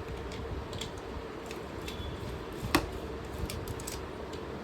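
Light clicks and taps of plastic Beyblade parts being handled and fitted, with one sharper click a little past halfway, over a steady low background hum.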